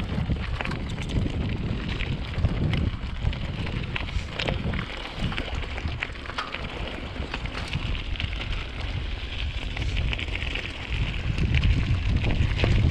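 Mountain bike riding a trail: wind buffeting the camera's microphone, tyres rolling over dirt with a crackling hiss, and short clicks and rattles from the bike over bumps. The wind gets louder about eleven seconds in.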